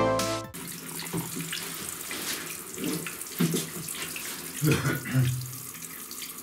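A music sting cuts off about half a second in. Then comes a steady hiss of running water, with low, indistinct voices a few times in the background.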